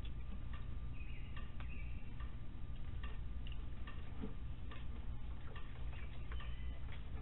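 Opossums eating dry food: irregular sharp crunching clicks, a few a second, over a steady low hum.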